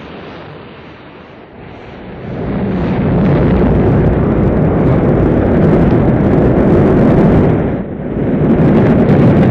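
Rocket launch rumble at liftoff: a low, dense rumble that builds about two seconds in and stays loud, with a brief dip near the end.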